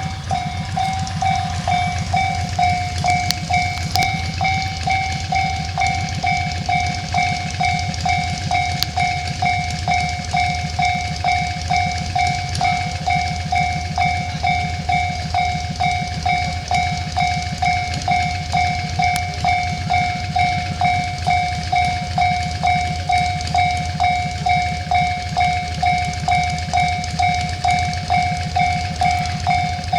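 Japanese level-crossing warning alarm ringing steadily, an even ding about twice a second, with a passing train's low rumble underneath.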